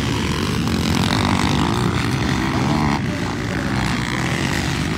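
Motocross dirt bike engines racing on the track, revving up and down as the bikes pass, with a change in the mix about three seconds in.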